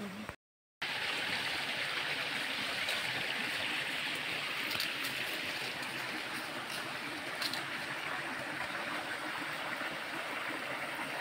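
Steady rush of a flowing stream, cutting in after a brief gap of total silence near the start, with a few faint ticks over it.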